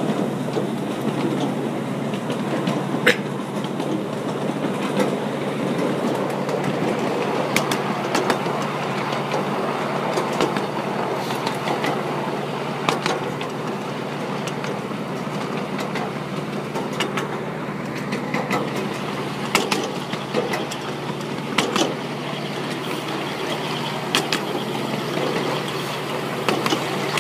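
Miniature railway train running along narrow-gauge track, heard from on board: a steady rumble of the coaches' wheels on the rails over a low hum, with irregular sharp clicks and clacks from the wheels and track.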